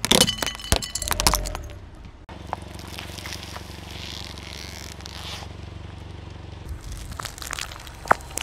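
Plastic objects cracking and crunching under a car tyre, with many sharp snaps in the first two seconds. Then a car engine runs with a steady low hum for a few seconds. More scattered cracks follow near the end.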